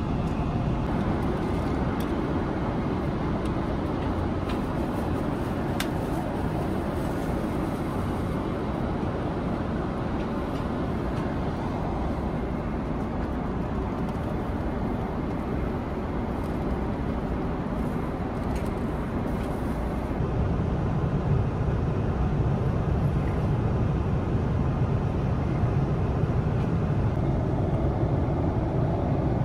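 Steady cabin noise of a Boeing 777-300ER airliner: a low rumble with a hiss of airflow over it. About twenty seconds in, the low rumble grows louder and stays so.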